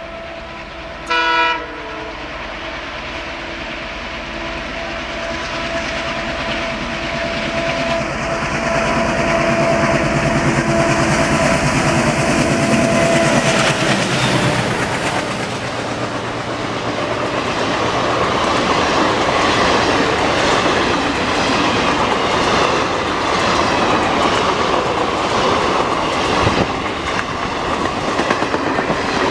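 A pair of WDG-3A diesel locomotives hauling an express train at speed. One short horn blast sounds about a second in. The engines then grow louder with a steady whine and pass around the middle, and the coaches roll by with a rhythmic clickety-clack of wheels over rail joints.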